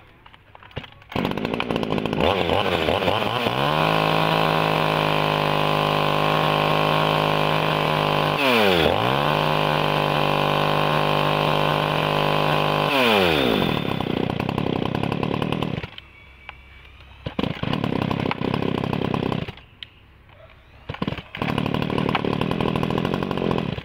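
Tanaka 26cc top-handle two-stroke chainsaw being started and run: it catches about a second in, climbs to high revs and holds there, dips once briefly and recovers, then drops back near idle. A few seconds later it cuts out and runs again in two short spells.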